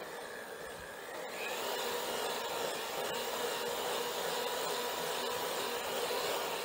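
Electric hand mixer running, its beaters working milk into confectioners' sugar and butter for buttercream frosting. The motor's whine steps up in pitch and gets louder about a second and a half in.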